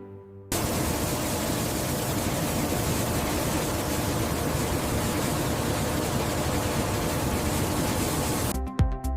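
A steady, even rushing hiss that cuts in abruptly about half a second in and stops just as abruptly near the end.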